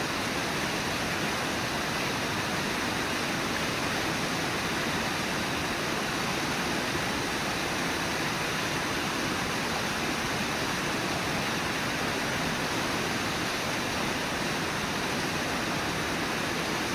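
Steady, unbroken rush of water pouring over Brooks Falls, the waterfall on the Brooks River.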